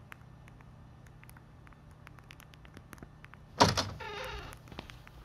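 Faint scattered light ticks, then about three and a half seconds in a door is opened with a sudden loud clack and a short rattling creak.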